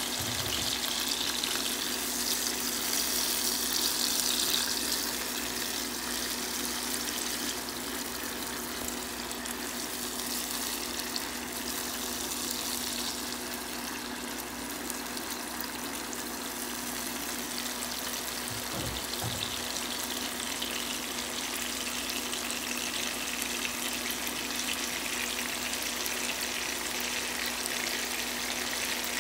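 Chopped onion, red and green peppers and garlic sizzling steadily in oil in a frying pan, a sofrito base being softened over the heat. The sizzle is a little louder for the first few seconds.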